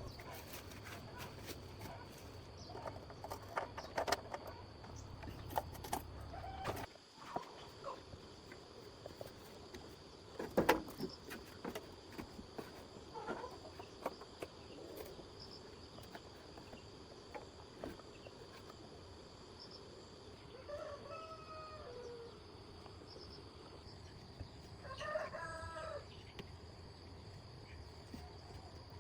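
A rooster crowing twice near the end, each crow lasting about a second. Scattered clicks and knocks come through the quiet before it, the sharpest about ten seconds in.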